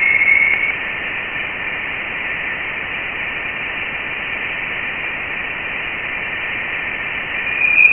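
NASA's audio rendering of Voyager 1's Plasma Wave Science radio data: a steady hiss with a tone band in the first second, then a louder, higher tone swelling in near the end. The tones are the plasma-wave signals Voyager 1 picked up on entering interstellar space, turned into audible sound.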